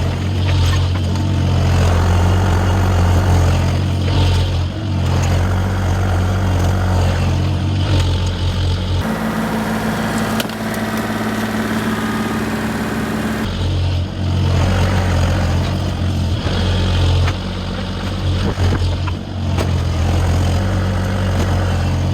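Mini excavator's diesel engine running steadily, with occasional knocks of debris being handled. For a few seconds in the middle the engine note changes to a higher steady pitch.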